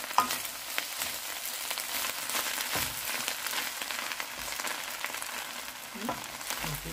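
Fried rice with egg, peas and carrots sizzling in a hot pan while a wooden spatula stirs and turns it, with frequent scrapes and clicks of the spatula against the pan.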